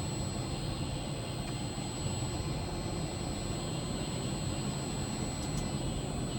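Heavy machine's engine running steadily with a constant rumble and a few steady whining tones, heard from inside its cab.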